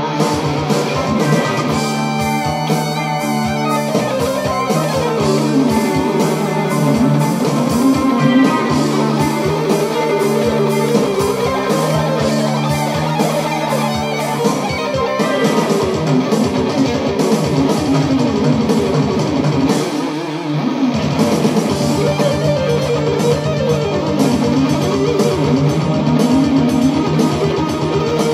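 Electric guitar played through an amplifier, a continuous stream of fast rock lead lines.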